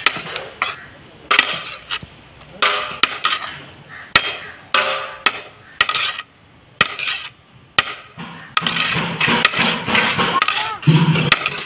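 Cooked biryani rice being scooped and turned in a large aluminium degh, with scraping and knocks against the metal pot in short bursts every second or so and a few sharp clicks. The sound grows denser near the end.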